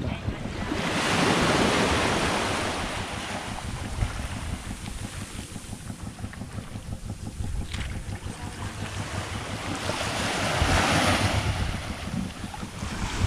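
Water rushing and splashing against a moving boat's hull, with wind buffeting the microphone. The spray swells louder twice, about a second in and again near ten seconds in.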